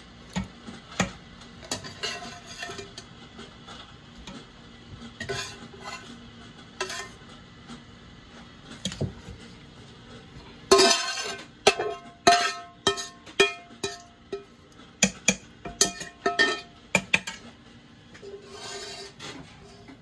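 Metal spatula clinking and scraping against stainless-steel pots as seared meat pieces are lifted from a pan into a pressure cooker's inner pot. A run of louder, ringing metal clanks comes about halfway through.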